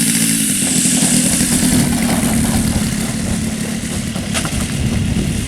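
Radio-controlled model airplane's engine running during a landing. The steady engine note turns into a rough rumble about half a second in, and there is one short sharp click after about four seconds.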